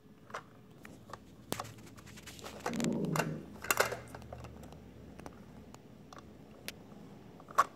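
Plastic clicks and knocks of a toy garbage truck's front-loader arms and bin being moved by hand, with a louder scraping rustle about three seconds in and a sharp click near the end.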